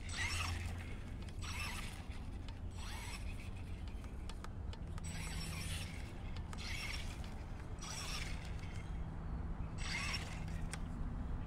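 Hosim 1:10 scale brushless RC truck running on grass: about ten short bursts of hissing motor and tyre noise as it is throttled on and off, over a steady low rumble.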